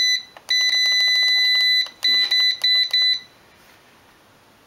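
Electronic beeps from a digital tire inflator as it is set to 20 psi for the snow blower's tires: a short beep, a long high-pitched beep of over a second, then a run of short beeps with faint clicks between them.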